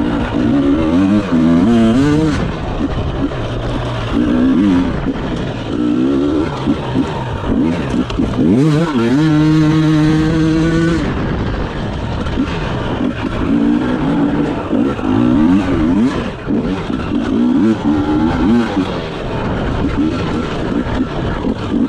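Enduro motorcycle engine ridden hard off-road, its revs rising and falling with the throttle. About eight seconds in the revs climb and hold high for a couple of seconds, then drop back to short on-off bursts.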